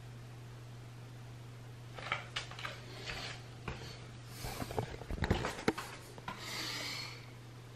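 Knocks and steps on a wooden floor as someone steps off a glass bathroom scale, followed by rubbing and scraping handling noise as the camera is picked up off the floor. A few seconds of irregular clicks and rubs over a steady low hum, ending with a short hiss.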